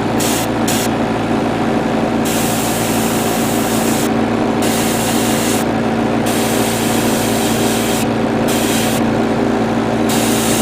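Airbrush spraying paint in repeated bursts of hiss, each from about half a second to two seconds long, with short pauses between, over a steady hum.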